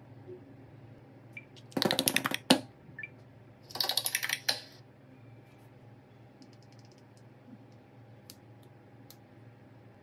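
Two short bursts of rapid clicking, each under a second long and about two seconds apart, followed by a few faint single ticks.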